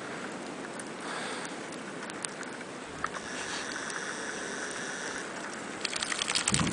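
Steady outdoor hiss of blizzard wind. In the middle a steady high whine lasts about two seconds, and near the end comes a burst of crackling clicks and low thumps.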